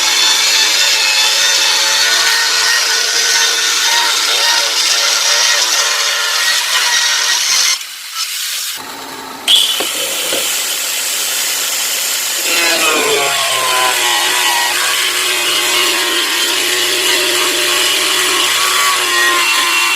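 Handheld ceramic tile cutter (a grinder-type cutting machine) running and sawing through plywood, a steady high whine with the rasp of the blade in the wood. It goes quieter for about a second and a half around eight seconds in, then comes back in full.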